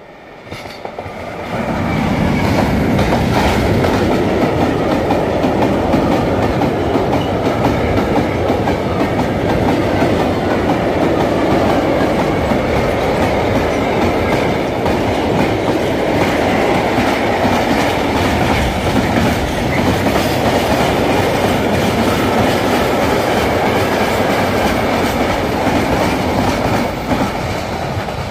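Freight train hauled by an electric locomotive passing close by: a loud, steady rumble and clatter of wagon wheels on the rails, rising sharply about two seconds in as the locomotive reaches the spot and easing slightly near the end.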